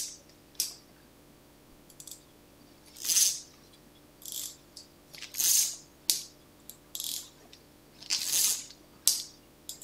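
Goture 7/8 fly reel's click-and-pawl drag ('chicharra') ratcheting in a series of short, high-pitched bursts as the spool is turned by hand, the longest burst under a second. The clicker sounds with the spool turning in the line-out direction, not the retrieve direction.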